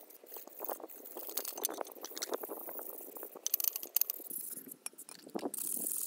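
A bare metal bicycle fork being scrubbed wet with an abrasive pad: irregular rubbing strokes, with light clinks of the metal tube knocking on the tabletop, most of them a little past the middle.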